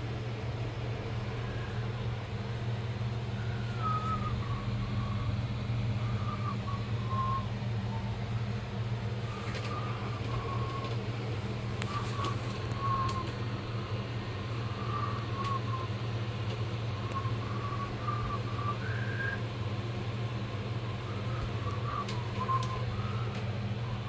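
A steady low hum, with faint, irregular high chirping tones over it and a few sharp clicks.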